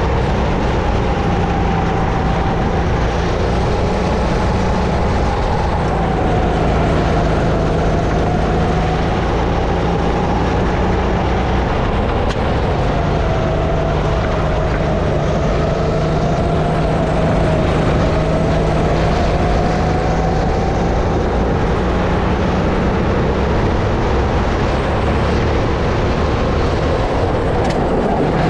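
Sodi RX-8 kart's 270cc four-stroke single-cylinder engine running hard under a lap of qualifying, its pitch dipping and climbing again several times through the corners. It is heard with heavy wind rush on a helmet-mounted camera.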